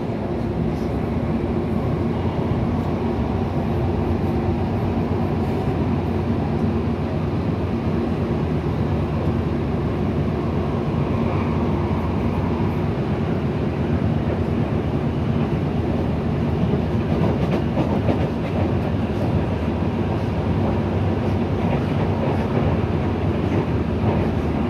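Medellín Metro train running at speed, heard from inside the car: a steady rumble of wheels on rail with a low hum held at one pitch.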